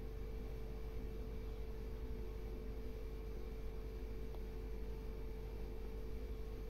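A steady hum with a constant mid-pitched tone running through it, unchanging throughout.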